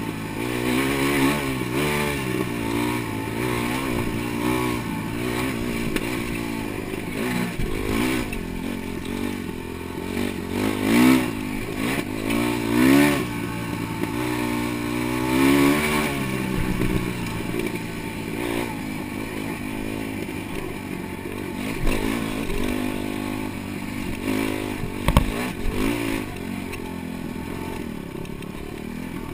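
Dirt bike engine being ridden hard, its pitch rising and falling over and over as the throttle is opened and closed, with a few sharp knocks along the way.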